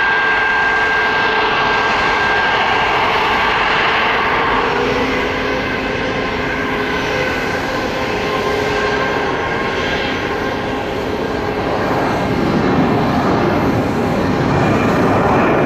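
Boeing 737-800's CFM56 jet engines at takeoff thrust during the takeoff roll: a steady jet noise with a high whine, growing louder over the last few seconds as the airliner rotates.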